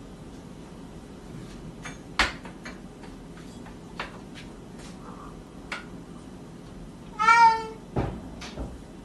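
A cat meows once near the end, a single call that is the loudest sound here. Before it come scattered light taps and knocks, and a thump follows just after the meow.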